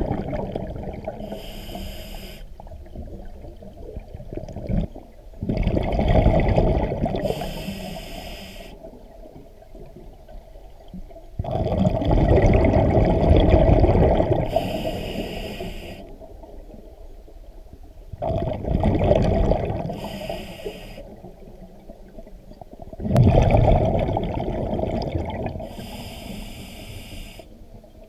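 A scuba diver breathing through a regulator underwater: a short hiss on each breath in, then a long burst of exhaled bubbles, the cycle repeating about every five to six seconds.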